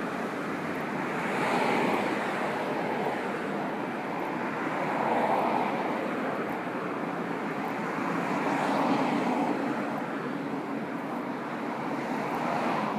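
Street sprinkler truck spraying water, a steady rushing hiss that swells and eases about every three and a half seconds.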